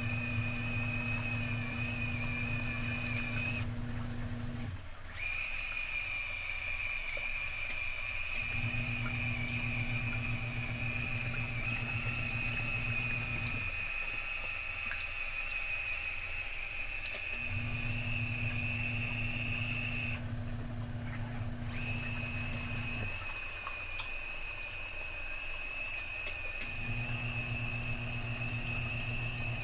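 Thanko USB mini washer clipped to a bucket: its small motor hums in runs of about five seconds with pauses of three to four seconds between, the intermittent left-right stirring cycle that churns the water. A thin high whine runs under it, breaking off twice.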